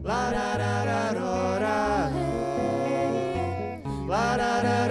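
Live acoustic band music: male and female voices singing the wordless "larararararorarô" refrain together over acoustic guitar and bass.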